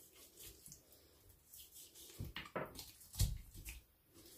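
A large kitchen knife cutting through a raw chicken's leg joint on a wooden cutting board: faint soft scrapes and a few light knocks of the blade, the loudest a dull thump about three seconds in.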